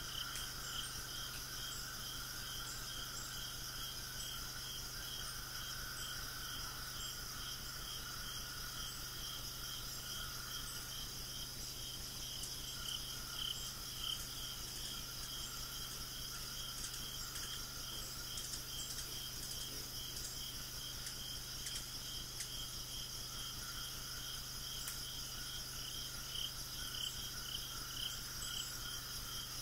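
Insects chirping in a steady outdoor chorus: a regular, evenly pulsed chirp over a continuous higher hum.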